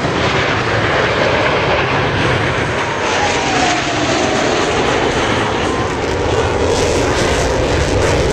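A formation of military jet fighters passing low, their jet engines a loud, steady rush. About three seconds in, a whine drops in pitch as the jets go by.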